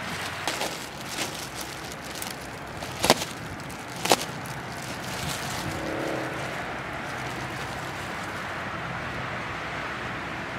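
Handling noise as polyester fiberfill is taken from its plastic bag and worked into a hole in a torn truck seat, with two sharp clicks about three and four seconds in, over a steady background hiss.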